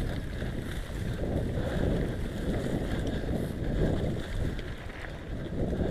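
Wind buffeting the microphone of a bike-mounted or helmet-mounted action camera, over the rumble and rattle of a bicycle rolling down a rough dirt track.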